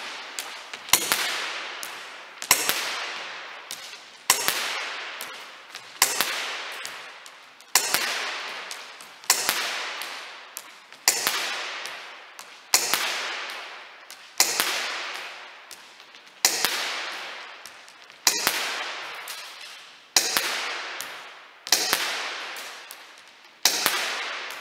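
Stark Arms S17 gas blowback airsoft pistol firing 0.25 g BBs in steady single shots, about one every 1.7 seconds, some fourteen in all. Each sharp crack is followed by a long echo that dies away in the room.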